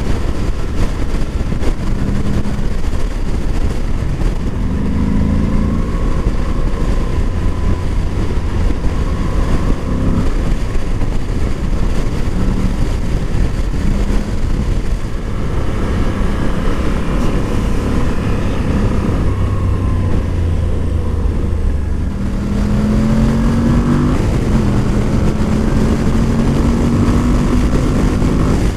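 Moto Guzzi V85 TT's air-cooled transverse V-twin running under way, its pitch climbing and dropping as it pulls through the gears, with a long steady climb in the last several seconds over a heavy low rumble.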